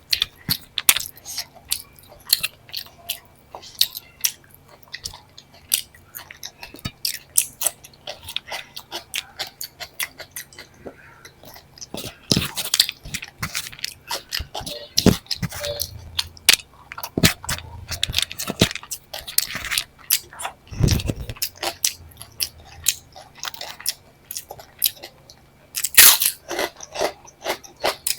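Close-miked eating: a person chewing mouthfuls of a homemade dal-rice meal, with frequent wet clicks and crisp crunchy bites, a few of them louder near the middle and near the end.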